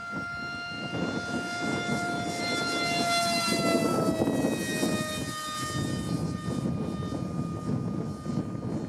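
Small radio-controlled foam F-16 parkjet flying past, its motor and propeller giving a loud, steady whine. The pitch falls as it passes closest, about three to five seconds in, then the sound fades a little as it moves away.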